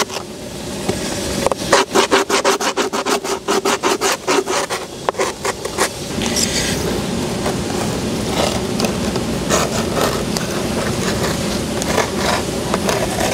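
Metal edge of a skate tool scraped back and forth along the grip tape over the edge of a wooden skateboard deck, in fast repeated strokes of about five a second that give way to a steadier rubbing from about six seconds in.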